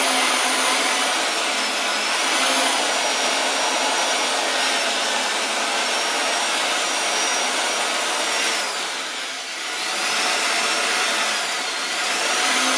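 Corded electric drill spinning a rotary brush against the metal compressor housing of a small gas turbine, a steady whir with scrubbing noise. Its faint high whine wavers in pitch, and the sound dips briefly about nine seconds in.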